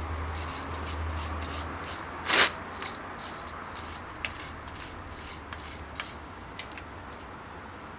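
Slag being chipped and scraped off a fresh flux-core MIG weld with a hand tool: a run of short, sharp scraping strokes, about two a second, one louder stroke about two and a half seconds in.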